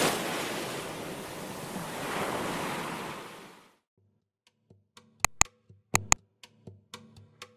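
A surf-like rushing wave sound effect swells, surges a second time and fades out over the first three and a half seconds. After a brief silence come a run of clicks, loudest as two sharp double clicks less than a second apart, with fainter ticks between: mouse-click effects for a subscribe button.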